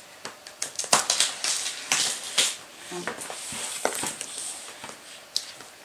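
Food packages being handled and unpacked from a box: packaging rustling and crinkling, with scattered clicks and light knocks.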